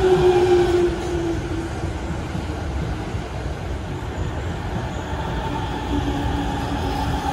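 E231 series electric commuter train pulling into a station: wheels rumbling on the rails, with a whine from its motors that falls in pitch over the first second and a half as it slows, and a lower whine about six seconds in.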